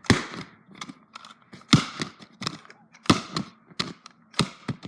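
A computer mouse knocked down hard again and again on a lump of slime on a tabletop. There are four sharp knocks about a second and a half apart, with lighter clicks and taps between them.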